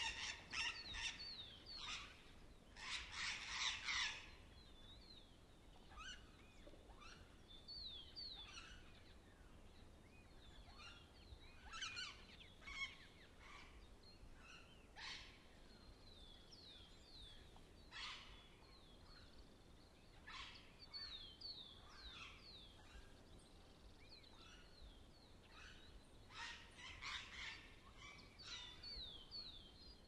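Parrots calling: scattered harsh squawks and runs of quick, falling chirps, with the loudest burst of screeching about three to four seconds in.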